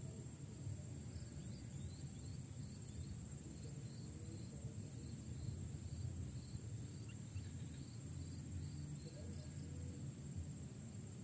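Woodland ambience: a steady high-pitched insect drone with faint short chirps repeating a couple of times a second, over a low rumble.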